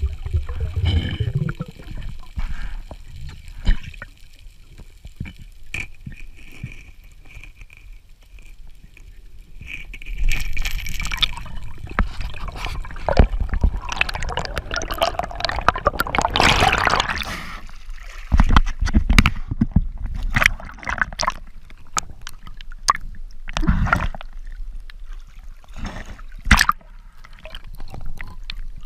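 Water gurgling and bubbling as heard underwater, with irregular sharp clicks and knocks, louder in the middle stretch.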